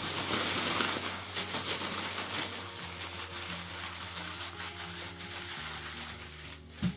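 Thin plastic bag crinkling and rustling as whole mushrooms are squeezed and tossed inside it, loudest in the first couple of seconds. Soft background music with held notes runs underneath.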